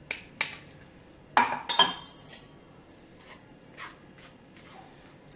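Steel kitchen utensils clinking as beetroot paste is strained through a strainer into a bowl. Several sharp, ringing clinks come in the first two and a half seconds, then a few faint taps.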